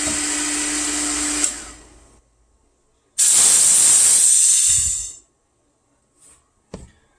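The GX CS3 high-pressure air compressor's running hum, with a steady tone, shuts off about a second and a half in. A couple of seconds later comes about two seconds of loud hissing air, blasting out water that has condensed in the compressor: the moisture purge valve being bled. A short click follows near the end.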